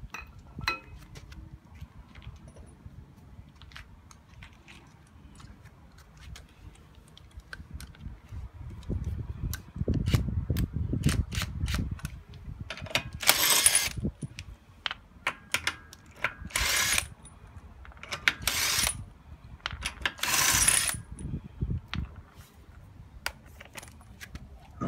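A cordless impact wrench runs in four short bursts, one for each lug nut, loosening the nuts on a car's front wheel. Scattered clicks and clinks of the jack handle, the tool and the nuts come before and after the bursts.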